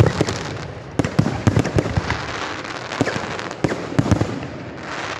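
Aerial fireworks display: rapid, irregular bangs of bursting shells over continuous crackling, with clusters of louder reports about a second in and near the end.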